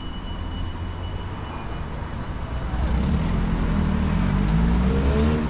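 Street traffic with a low, steady rumble. About three seconds in, a motor vehicle's engine grows louder and its pitch rises as it accelerates past.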